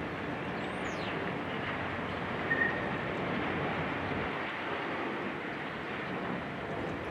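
Steady noise of a demolition excavator working, with a short high squeak about two and a half seconds in and a brief chirp near the start.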